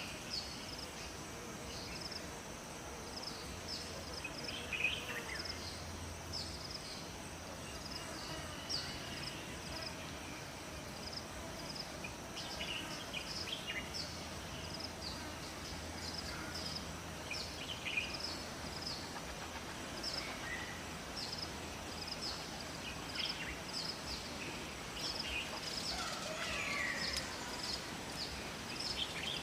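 Forest ambience: wild birds singing and calling, with one short high chirp repeating about once a second, over an even rush of running water.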